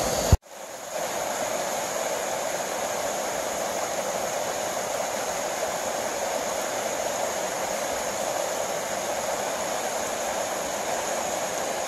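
River water rushing over a shallow rapid: a steady, even hiss.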